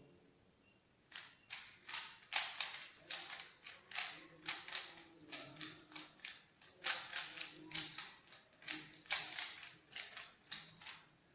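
Rubik's cube being scrambled by hand: a quick run of plastic clacks as its faces are turned, starting about a second in, two or three turns a second.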